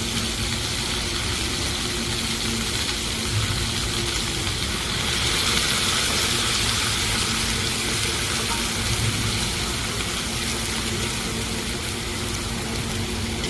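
Chicken and vegetables sizzling in a frying pan on a gas range, the sizzle swelling about five seconds in as broth is ladled into the hot pan, over a steady low hum.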